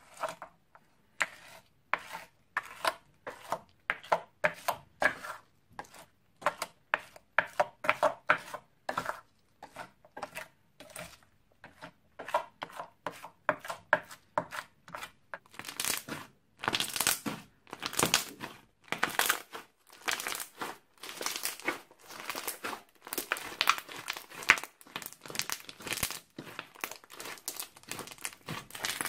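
Wet, sticky slime being worked: first a plastic spoon stirring a thick glue-and-paint mixture round a glass dish in even strokes about two a second, then, from about halfway, louder and denser crackly squishing as the thickened crunchy slime, full of small beads, is kneaded by hand.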